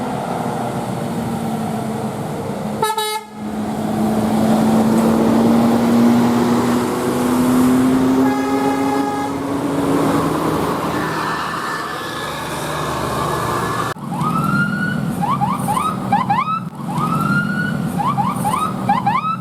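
Bus engine running, its pitch slowly rising, with a short steady horn blast a little past the middle. Near the end a 'telolet' musical air horn sounds a quick string of upward-swooping notes.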